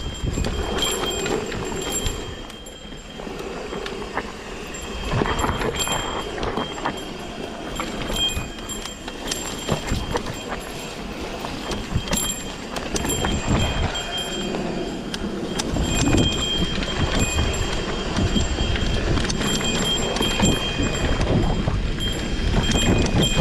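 Mountain bike rattling and clattering over a rough, rocky single-track descent, with continuous knocks from the trail and wind rumble, and high squeals that come and go.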